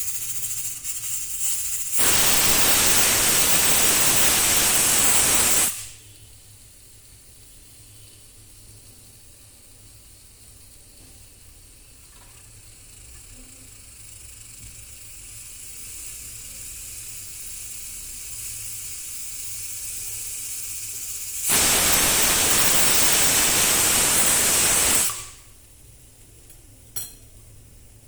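Pressure cooker whistle blowing off steam twice, each loud hissing blast lasting about three and a half seconds. In between, a fainter hiss of escaping steam builds steadily, and a short click comes near the end.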